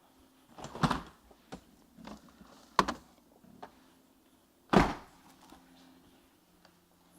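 Scattered knocks and thuds from kitchen handling, as a bowl is set aside and the chicken is brought out. There are four or five separate knocks, the loudest about five seconds in.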